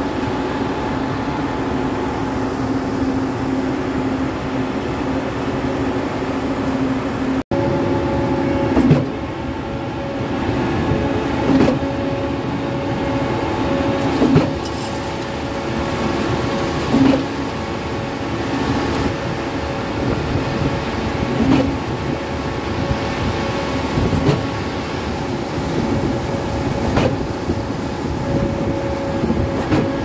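Truck mixer and trailer concrete pump running steadily as concrete pours down the chute into the pump hopper. A knock comes about every two and a half to three seconds, the pump stroking.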